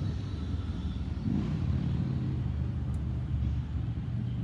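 Motor vehicle engine running nearby, a low rumble with a steady low engine note setting in about a second and a half in.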